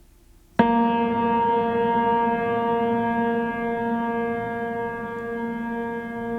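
A sound effect: a loud ringing tone with many overtones that starts suddenly about half a second in, held and slowly fading, after a faint steady tone.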